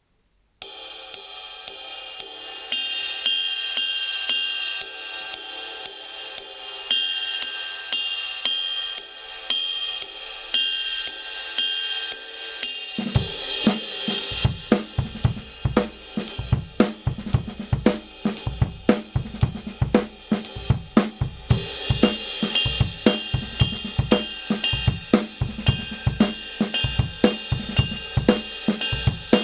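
Kingdo Artist Dark 20-inch ride cymbal played alone in a steady stroke pattern. About halfway through, the full drum kit joins, with bass drum and snare under the ride.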